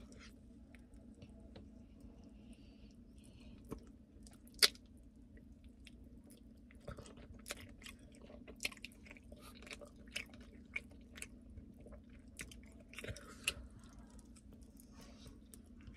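Close-up chewing and biting on sauced chicken wings, with many small wet mouth clicks and smacks. One sharper, louder click comes about four and a half seconds in.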